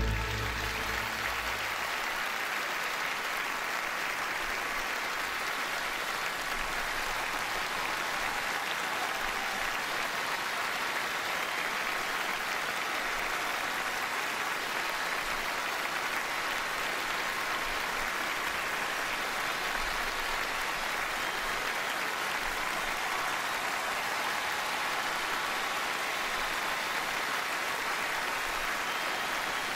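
Large audience applauding steadily, a dense, even clapping that holds without a break.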